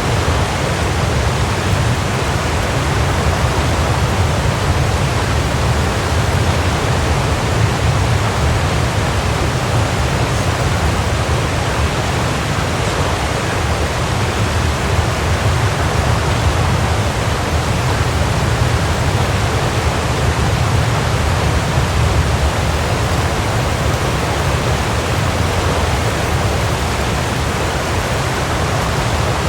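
Waterfall: a steady, unbroken rush of falling water, with a deep low rumble beneath the hiss.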